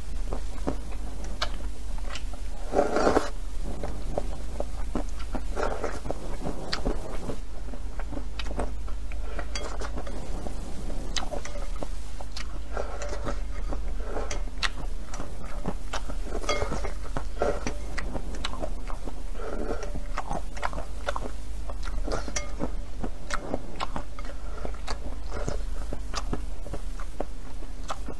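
Slurping and chewing rice noodles in broth, with small clicks of wooden chopsticks against a ceramic bowl. The loudest slurp comes about three seconds in. A steady low hum runs underneath.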